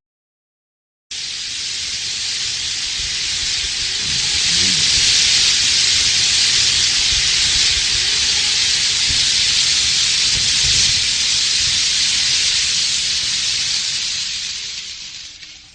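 Peacock fountain firework spraying sparks with a loud, steady hiss. The hiss starts suddenly about a second in and fades near the end.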